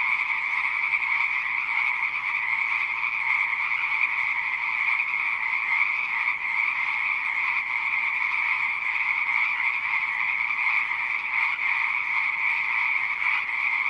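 Frogs croaking in a dense, continuous chorus that holds steady without pauses.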